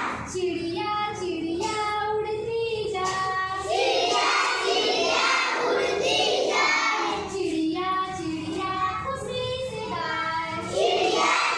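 Children singing a counting rhyme together in sung phrases with held notes, alternating with noisier chanted stretches.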